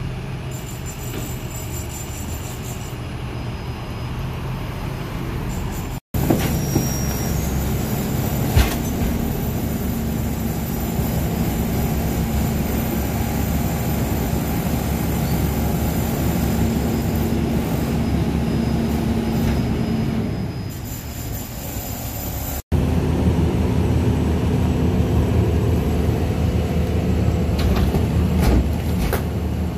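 Rear-loading garbage truck running, its diesel engine and hydraulic compactor working, with a steady whine through the middle that fades out near the end. A single sharp bang sounds in the hopper after about eight and a half seconds.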